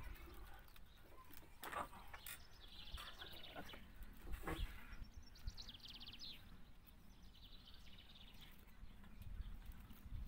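Faint bird chirps and short trills, a few times, with occasional knocks and rubbing from hands working on the motorhome's over-cab shell.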